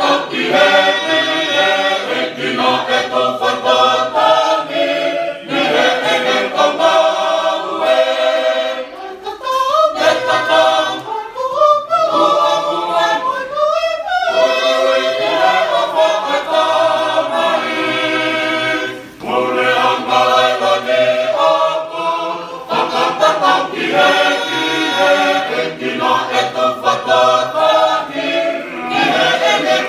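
Tongan church choir of men and women singing a hymn a cappella in parts, with the voices sliding upward in pitch near the middle and a short breath between phrases about two-thirds of the way through.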